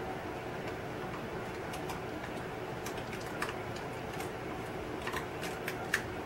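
A handful of small, irregular clicks and taps as small model parts are handled and pressed into a scenery base, the sharpest near the end, over a steady background hum.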